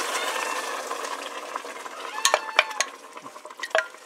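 Chicken stock sizzling and hissing as it hits hot toasted rice and orzo, the hiss dying away. In the second half a wooden spoon stirs and knocks against the metal pot a few times.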